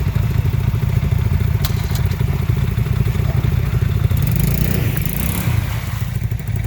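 Off-road vehicle engine running steadily at low revs, with a couple of sharp knocks early on and a brief swell of louder noise a little past the middle.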